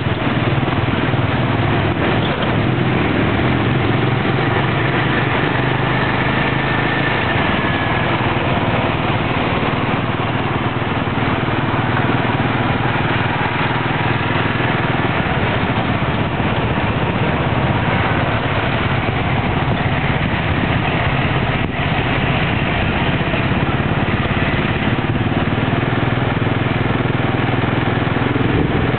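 Tuk tuk's motorcycle engine running steadily while riding through traffic, mixed with road and wind noise.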